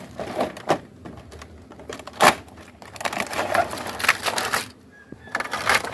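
Toy packaging being opened by hand: irregular crinkling and crackling, with a sharp snap about two seconds in.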